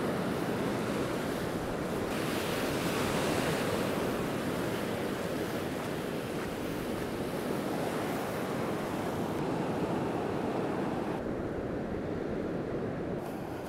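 Sea surf breaking and washing up over a sandy beach in a steady rush.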